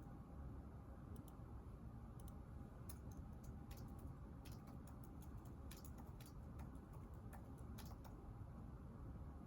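Faint typing on a computer keyboard: scattered, irregular soft key clicks over a low steady room hum, stopping shortly before the end.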